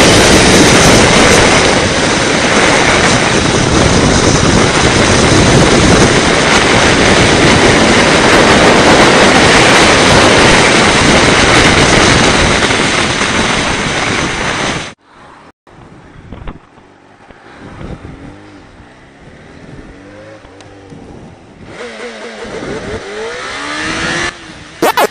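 Kawasaki Ninja H2 sportbike's supercharged inline-four accelerating at highway speed, with a loud rush of wind on the microphone that nearly covers the engine. About fifteen seconds in the sound cuts off; after that the engine is heard much quieter, its revs rising and falling.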